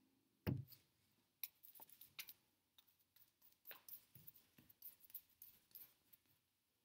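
Faint, short scratchy strokes of a paintbrush on a stretched canvas, with a dull thump about half a second in.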